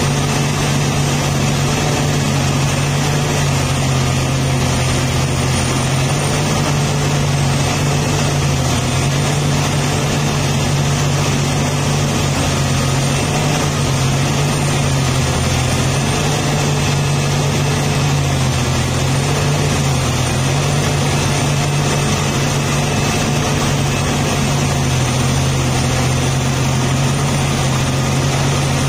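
Diesel engine of a Liebherr R984C hydraulic mining excavator running steadily while it digs, a constant deep drone whose pitch wavers slightly.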